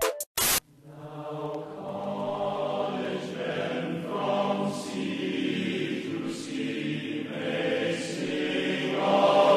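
Chant-like choral singing: several voices holding low sustained notes as background music. A short sharp burst of noise comes just at the start.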